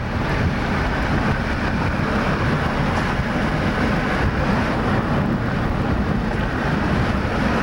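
Steady road noise of a vehicle driving, with wind rushing over the microphone.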